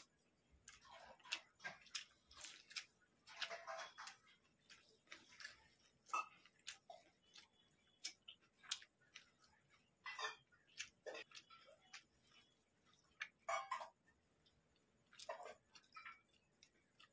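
Fingers mixing rice by hand on a metal plate and dipping into the curry, close-miked: irregular soft wet squishes and small clicks, a few a second.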